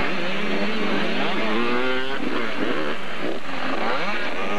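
Several 80cc two-stroke motocross bikes racing on the track, their engines overlapping and revving up and down as they accelerate and back off.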